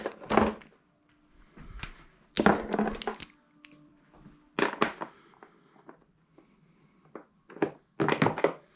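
Irregular knocks and clunks from hands and tools working at the airbox cover of a Yamaha Breeze ATV, about half a dozen separate bumps with short pauses between, the last ones near the end coming close together.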